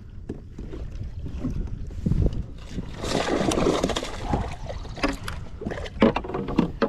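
A hooked largemouth bass splashing at the surface as it is scooped into a landing net beside a plastic kayak, the loudest splashing about three seconds in. A few sharp knocks against the kayak follow near the end.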